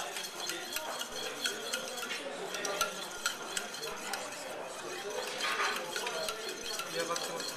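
Knife blade scraping and clicking against a metal canister and metal tray as pressurized meat is worked out of the canister: a dense run of small irregular clicks and scrapes.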